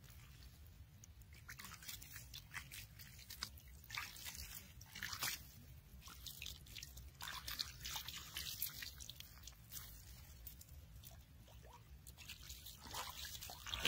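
A hand patting and smoothing wet mud, making irregular short squelches and crunches.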